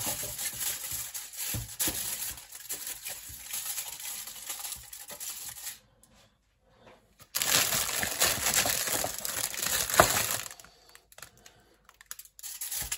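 Aluminium foil crinkling as it is pressed and shaped by hand into a small tray. It comes in two spells with a short pause about six seconds in, the second louder, with a sharp click around ten seconds in.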